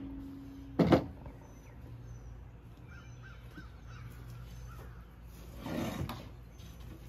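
A single hard knock about a second in, a cordless drill set down on the wooden tabletop. After it come faint bird calls over a low steady hum, and a brief rustle of tools being handled on the table near the end.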